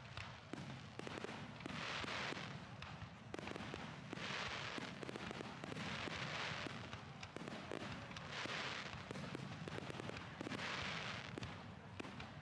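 Aerial fireworks display: a dense run of sharp bangs and cracks from bursting shells, with a crackling hiss swelling up about every two seconds.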